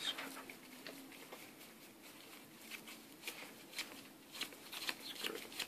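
Faint scattered clicks and soft rustles of sleeved Yu-Gi-Oh cards being handled, more of them in the last couple of seconds.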